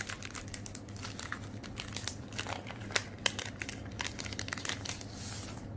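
Paper and plastic crinkling and rustling as a music album's contents are handled, with scattered small clicks and a longer, softer rustle near the end.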